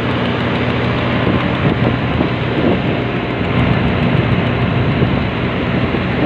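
Motorboat engine running steadily while the boat is under way: an even, unbroken drone with a low hum, mixed with rushing water and wind.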